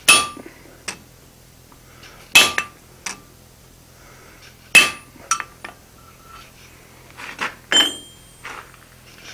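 Hand hammer striking a cold chisel held on a red-hot tong jaw on an anvil: three hard ringing blows about two and a half seconds apart, each followed by lighter taps, scoring a shallow lengthwise groove down the jaw rather than cutting through. Near the end comes a lighter metallic clank on the anvil.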